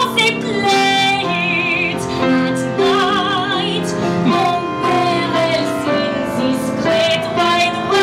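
A woman singing a show tune with grand piano accompaniment, holding some notes with vibrato.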